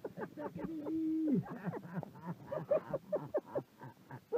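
American Staffordshire Terrier puppies whining and yelping at close range, with wet licking noises and a man laughing among them. The calls come in short rising-and-falling bursts, with one longer drawn-out whine about a second in.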